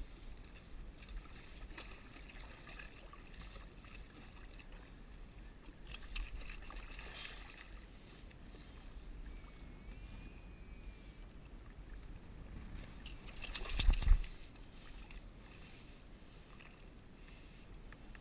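Water sloshing and splashing against a kayak hull as a hooked bluefish thrashes at the surface beside it, with bursts of sharp splashes partway through. About three-quarters of the way in comes one short, much louder splash-and-thump.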